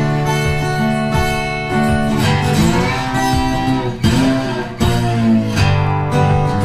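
Background music: acoustic guitar with a country or bluegrass feel.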